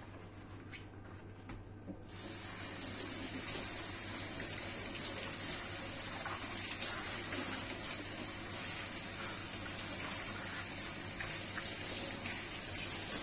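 Water from a tap running steadily into a sink, turned on about two seconds in after a few light knocks.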